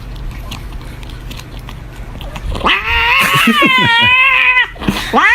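Domestic cat yowling: one long, wavering call starting about two and a half seconds in and lasting about two seconds, with a shorter meow beginning near the end.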